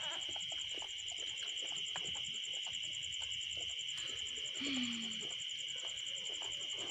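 Crickets chirring steadily in a night-time insect chorus, with faint soft clicks from a mother dog licking her newborn puppies. A brief low falling whimper comes about five seconds in.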